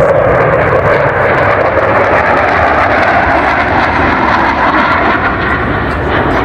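Aircraft flying past, its engine noise loud and steady, easing slightly near the end.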